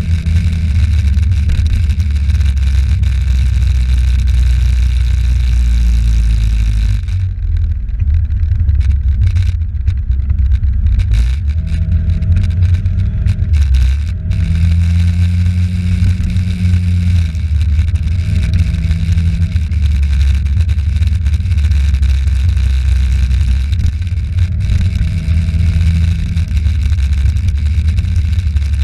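Moped engine running under way, with a heavy low rumble of engine and road noise. Its note swells and eases a few times as the throttle is opened and closed.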